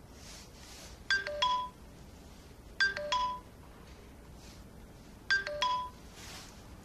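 A short electronic two-note chime, like a device alert tone, sounding three times a couple of seconds apart.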